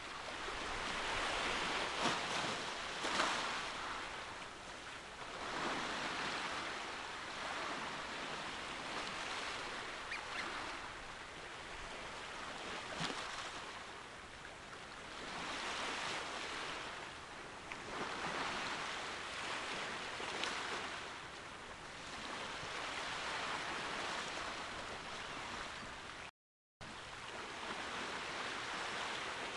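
Sea waves washing against the shore, swelling and falling away every few seconds. The sound cuts out briefly near the end.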